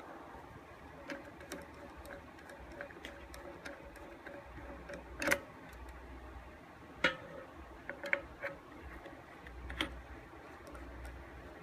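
Flathead screwdriver working screws out of an Olympia Moca coffee grinder's top plate: scattered light ticks and clicks of the tool on the metal screws, with a few louder clicks around the middle.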